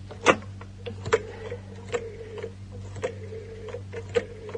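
A telephone being dialled: a sharp click about once a second, with a steady tone sounding between the clicks.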